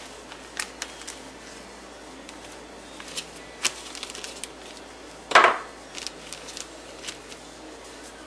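Handling of a rebuild kit's plastic parts bag on a wooden workbench: scattered small clicks and crinkles as it is opened and the gaskets are taken out, with one louder, brief rustle about five seconds in.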